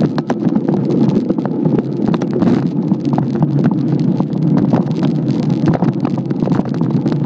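Giant Trance X1 mountain bike riding over rough forest singletrack, heard through a phone mounted on its stem: a constant rumble of tyres and frame vibration with many sharp rattles and knocks as it hits roots and bumps, and wind buffeting the microphone.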